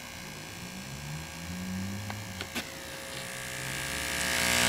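Speaker driver wired straight to a 120-volt wall socket, buzzing with mains hum. A few sharp clicks come about two seconds in, then the buzz swells much louder near the end.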